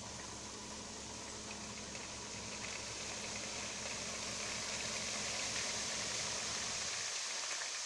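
Dump truck tipping its load of sand: the engine drives the hydraulic hoist with a steady low hum that cuts off about seven seconds in, while the sand slides out of the raised body with a rushing hiss that grows louder.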